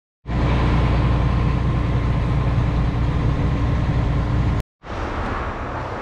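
Steady low drone of a boat's engines with a steady hum over it, as heard on the vessel's deck. It cuts off abruptly after about four and a half seconds, and a quieter, even outdoor noise follows.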